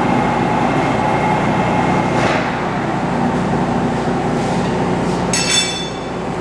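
Metal lathe running steadily while the tool takes a very light facing cut across a sawmill mandrel collar, with a brief high squeal from the cut about five seconds in.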